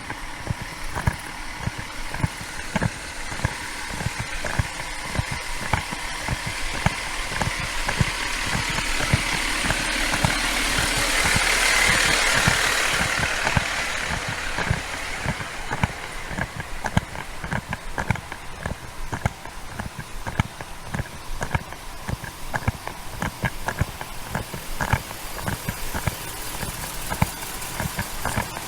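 A vehicle passes, its noise swelling to a peak about twelve seconds in and then fading. Under it are steady rhythmic thumps about three a second, typical of walking with a body-worn camera.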